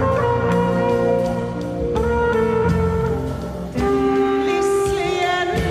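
Live jazz: a trumpet playing long held notes over a double bass.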